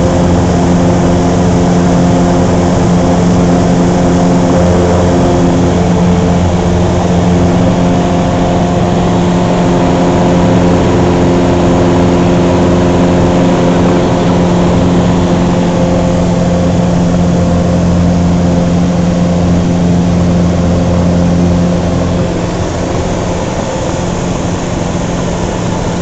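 Cessna 150's Continental O-200 four-cylinder engine and propeller at full takeoff power, heard from inside the cabin through the takeoff run and climb-out: a loud, steady drone that drops a little in level near the end.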